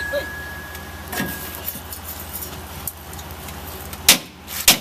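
Light metallic clinking from work on a pickup's rear leaf spring hardware, with two sharp metal clanks near the end over a steady low hum.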